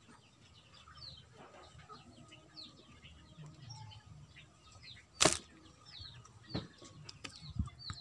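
Small birds chirping faintly in the background. About five seconds in comes a single sharp snap from a homemade PVC-pipe bow as its string is released and an arrow is shot, and two softer knocks follow near the end.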